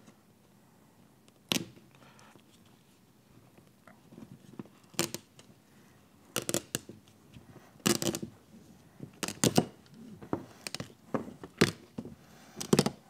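Rubber outer beltline weatherstrip from a Datsun Z car being pulled free of its metal retainer strip and handled on the bench: a string of about ten sharp, irregular clicks and knocks, thickest in the second half.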